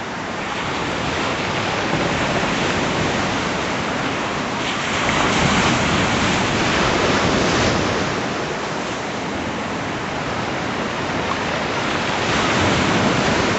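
Sea waves washing onto a rocky shore: a steady rush of surf that swells louder twice.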